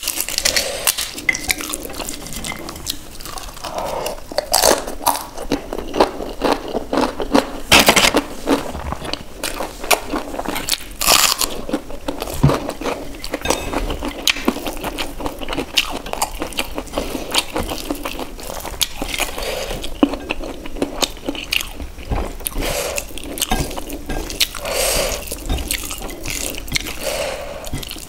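Fingers squishing cooked rice into paneer gravy and crushed roasted papad on a plate, heard close up. It is a continuous run of wet squelching broken by many small crisp crackles from the papad pieces, with occasional clicks against the plate.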